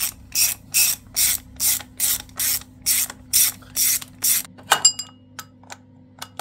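Hand ratcheting driver turning a bolt on an engine's belt tensioner: about a dozen short ratcheting strokes at a steady pace of roughly two and a half a second. Near the end it stops, and a metallic clink with a brief ring is followed by a few light ticks.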